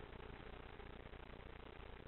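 Near silence: a faint, steady background hiss with a light hum.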